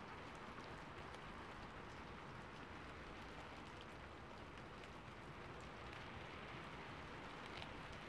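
Steady, quiet rain falling, with small drop ticks scattered through it.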